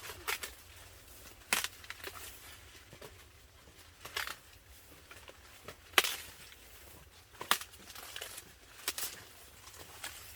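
Dry corn plants crackling and snapping: irregular sharp snaps every second or so, with the loudest about six seconds in.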